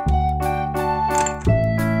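Background music: keyboard or electric piano playing a steady run of notes over held bass notes that change about every one and a half seconds.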